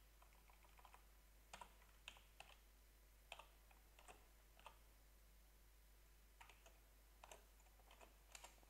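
Faint computer keyboard typing: single keystrokes clicking at irregular intervals.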